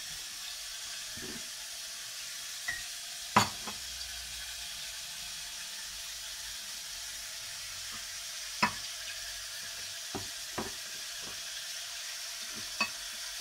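Steady sizzling hiss of pork tenderloin pieces simmering in broth in a stainless-steel pot, broken by a few sharp clicks and knocks of kitchen utensils, the loudest about three and a half seconds in.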